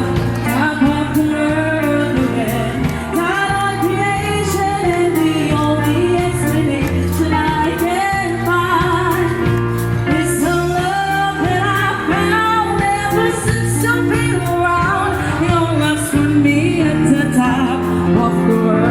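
Live band playing pop music with a singer's voice carried over the top, amplified through a budget UHF wireless microphone and PA. A steady drum beat runs under shifting bass notes.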